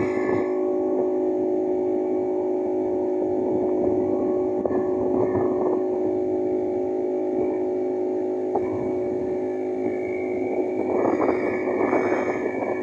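Motorboat engine running steadily with an even, unchanging drone, with a rougher, noisier stretch near the end.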